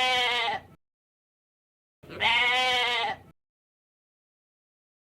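Goat bleating: the end of one wavering bleat, then a second bleat of just over a second, each cut off abruptly.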